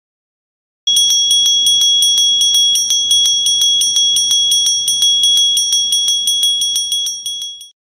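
Small ornate metal hand bell rung rapidly, its clapper striking about six times a second in a steady high ring. It starts about a second in and stops abruptly near the end.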